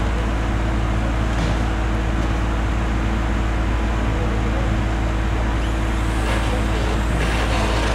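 Heavy equipment engine running steadily, a constant low drone with a steady hum through it.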